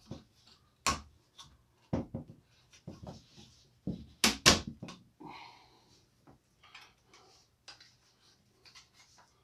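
Clicks and knocks from handling a Ravin R10 crossbow on a table while fitting a part to its rail, a few seconds apart, with two sharp clicks close together the loudest about four and a half seconds in, then lighter ticks.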